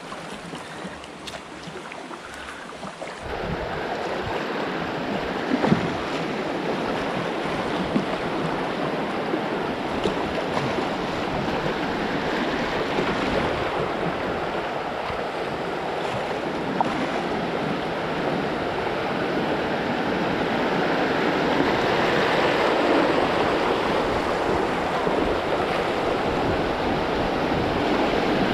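Rushing river water around a kayak in a shallow rapid: a steady noisy wash that sets in suddenly about three seconds in and grows a little louder later on, with a few light knocks.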